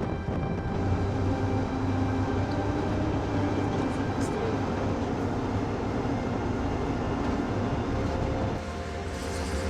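A vehicle driving, heard from inside the cabin: a steady engine drone with road noise. The sound dips and changes tone about eight and a half seconds in.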